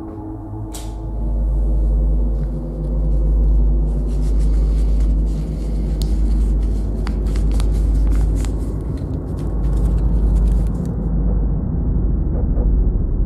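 Dark ambient drone from the film's score: a deep, steady rumble under a low hum of several held tones. Scattered crackles and clicks come in from about four seconds in and stop about eleven seconds in.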